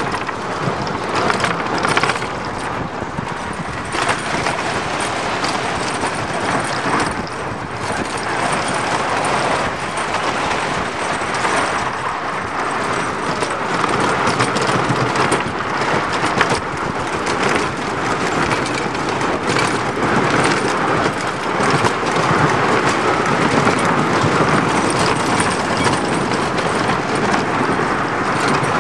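Train of a 1920 wooden roller coaster, the Scenic Railway, running along its wooden track: a continuous rumble and clatter that grows somewhat louder about halfway through.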